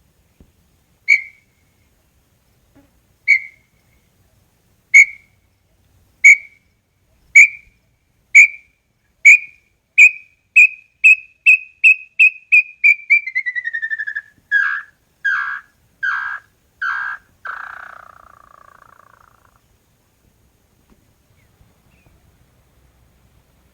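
Small-billed tinamou (inhambu-chororó) singing one full song. Clear whistled notes start about two seconds apart and speed up into a rapid run that drops in pitch. The song ends in four or five slower, downward-slurred notes.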